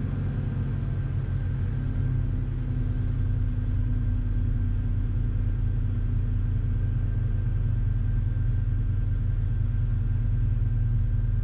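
Piper PA-46 Malibu's piston engine idling steadily at about 1,000 RPM after its run-up, mixture full rich; the drone gets a little louder about two seconds in.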